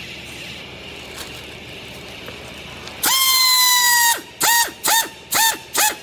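A horn sounds one long blast of about a second, then four short blasts in quick succession.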